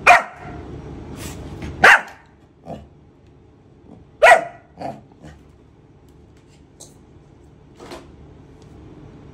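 A pet dog barking: three loud, sharp barks about two seconds apart, then a few softer barks. The dog is timid, barking at something that has frightened it.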